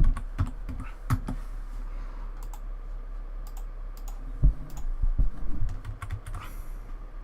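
Computer keyboard keys tapped at an irregular pace, a few louder strokes among lighter ones, over a low steady electrical hum.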